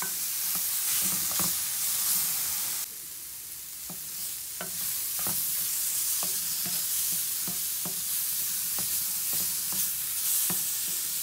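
Sliced button mushrooms sizzling in a frying pan while a wooden spatula stirs them, with a short scrape or tap against the pan about once a second. The mushrooms are near the end of sautéing, their liquid nearly cooked off so they are browning. The sizzle drops suddenly about three seconds in, then builds back.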